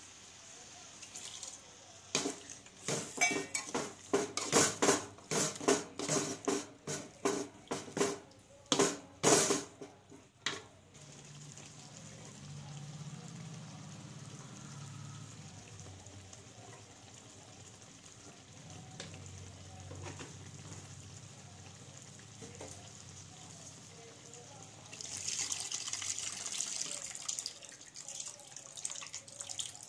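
A metal spoon knocks and scrapes against a metal pot in a quick run of sharp clatters while stirring thick bitter gourd masala. Near the end tamarind water is poured into the pot with a splashing, pouring noise.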